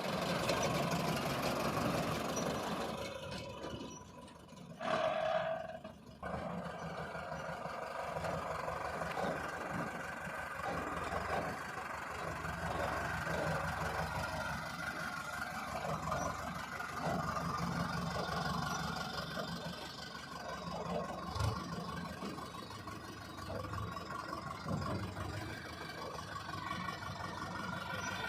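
Heavy vehicle engine running steadily, with a brief higher tone about five seconds in.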